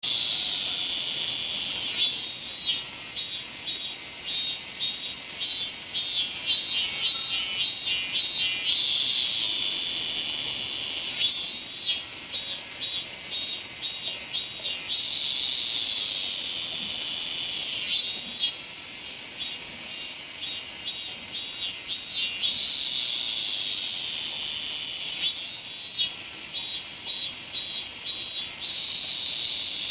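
Robust cicada (minmin-zemi) singing its pulsed 'meen-meen' song in four phrases of a few seconds each, about two pulses a second, over a constant high-pitched buzz.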